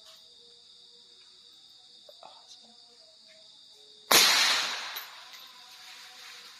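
A single hunting-rifle shot about four seconds in, a sharp crack that dies away over about a second. Night insects chirp steadily underneath.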